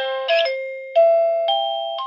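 JSIEEM wireless doorbell receiver's speaker playing one of its built-in chime melodies: a short tune of electronic bell-like notes, each struck and fading, the loudest about a second in.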